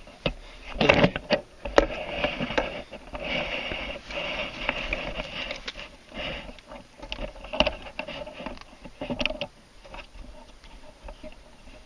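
Handling noise as a camera is repositioned: rustling and rubbing with scattered knocks and clicks, the strongest knock about a second in.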